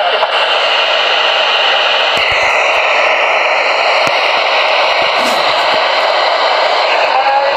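CB radio receiver hissing with steady static on 27.245 MHz during an 11-metre band opening, with faint warbling tones from distant signals briefly near the start and again near the end.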